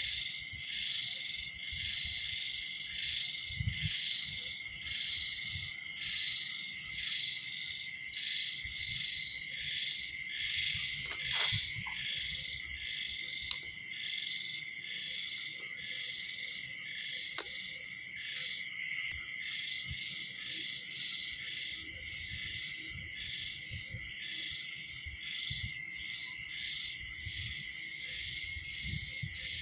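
Night chorus of calling insects: a continuous high trill with a pulsing call over it about twice a second.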